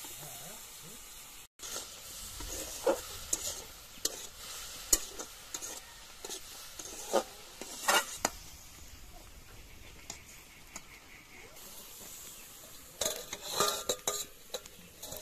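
Food sizzling as it fries in an aluminium wok over a wood fire, with a metal spatula stirring and scraping the pan in sharp clinks every second or two. Near the end comes a burst of metal clatter as an upturned pan is set over the wok as a lid.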